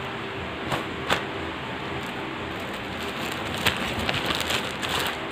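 Steady hiss of an electric fan, with the rustle of a cotton T-shirt being folded and plastic packaging being handled: a couple of sharp crinkles about a second in and a run of crinkling in the last second and a half.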